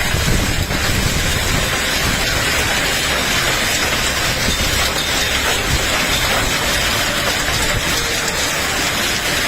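A heavy hailstorm: hail and rain pelting down in a dense, steady hiss, with strong wind buffeting the microphone in an uneven low rumble.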